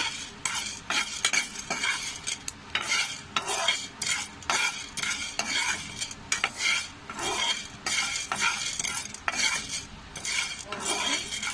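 Black peppercorns being dry-roasted in a pan, stirred with a spatula: repeated scraping and rattling strokes, about two a second.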